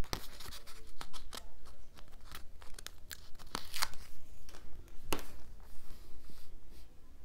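A paper sticker sheet crinkling in the hands as a small label sticker is peeled off with metal tweezers and laid on a planner page: an irregular run of sharp ticks and rustles, the loudest near the start and at about four and five seconds in.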